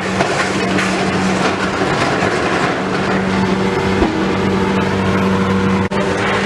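Heavy machine engine running steadily on a demolition site, under a continuous clatter with scattered sharp knocks and cracks.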